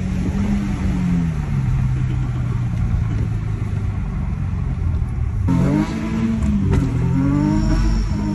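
Infiniti G37's 3.7-litre VQ V6 engine, heard from inside the cabin. The revs fall and settle while the car rolls along. About five and a half seconds in, the throttle opens hard and the engine revs climb, dip briefly and climb again under acceleration.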